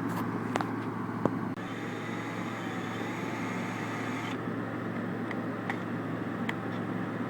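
A steady low mechanical hum, with a few light clicks or taps spread through it.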